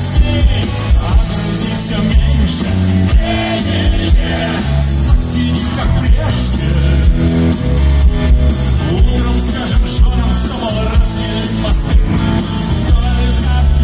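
Rock band playing live through a concert PA, heard from the audience: electric guitars, bass guitar and drums keeping a steady beat.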